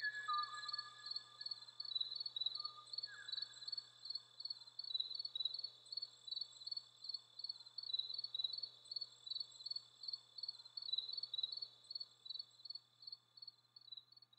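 Field recording of the last known Kauaʻi ʻōʻō (Moho braccatus): a few faint whistled notes in the first three seconds, one sliding down, over steady chirping of insects, about three or four chirps a second.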